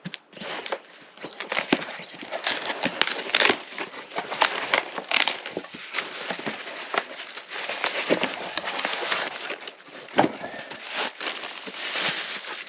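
Packaging being opened and unwrapped by hand: continuous crinkling and rustling with many small crackles.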